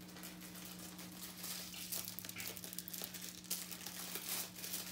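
Plastic bag wrapping crinkling and rustling in the hands as it is pulled off a wallet, in short irregular bouts, over a steady low hum.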